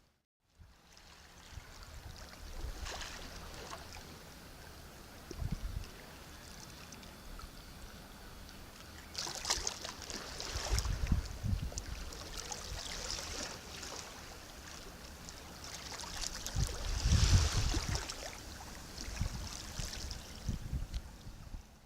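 Sea waves breaking and washing on the shore, a steady hiss that swells into louder surges about every six to eight seconds, each with a deep rumble. The sound starts after a brief moment of silence.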